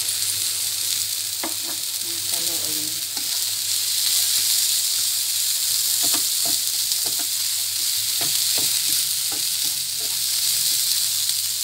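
Diced onion and corn kernels sizzling in a nonstick frying pan, with a spatula stirring and scraping against the pan in short, irregular strokes.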